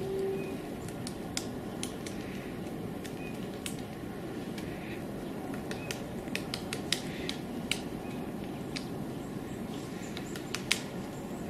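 Woodpecker pecking at tree bark: irregular sharp taps, one louder near the end, over a steady low background rumble.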